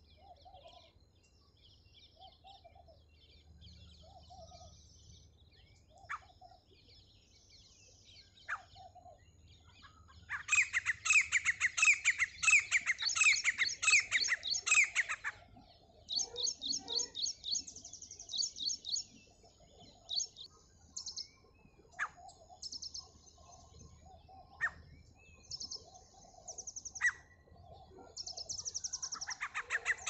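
Grey francolins calling. Soft low notes come about once a second at first; from about ten seconds in, loud runs of rapid, high, repeated call notes begin, stopping and restarting several times.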